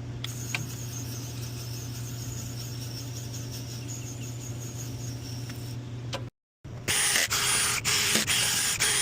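A steady low mechanical hum with a few faint ticks. After an abrupt cut, a loud hissing spray that breaks off and starts again several times, as in cleaning an HVAC coil.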